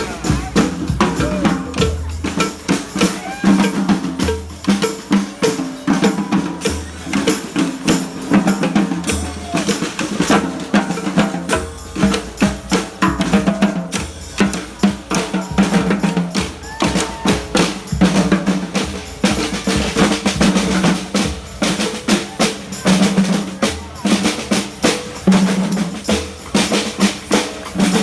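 Murga-style brass and percussion street band playing live: a steady bass drum and snare beat under held low brass notes.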